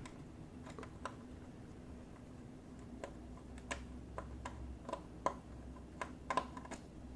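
Light, irregular clicks and taps of a screwdriver working the small screws out of a laptop's display panel, with the screws being set down in a container.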